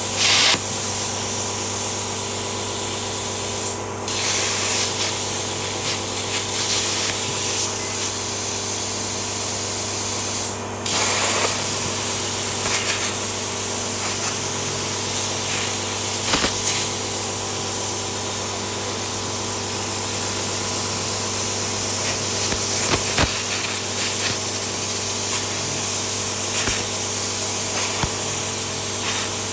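CNC plasma cutter arc cutting sheet steel: a loud, steady hiss over a constant electrical hum. The hiss dips briefly twice and comes back louder.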